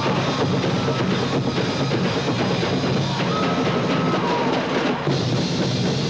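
College marching band playing, with the drumline's drums prominent.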